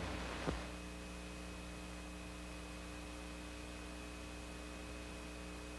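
Steady low electrical mains hum with faint hiss, and a small click about half a second in.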